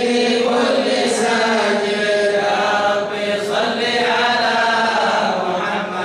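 A group of men chanting a devotional mawlid poem in praise of the Prophet together, with long held melodic lines.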